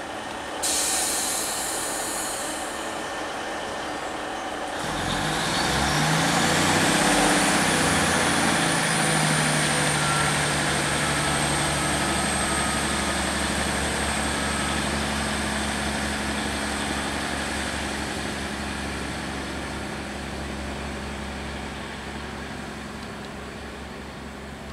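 Class 150 Sprinter diesel multiple unit pulling away from the station. A burst of air hiss comes about half a second in. About five seconds in, the underfloor diesel engines open up with a rising whine, then run steadily and slowly fade as the train draws away.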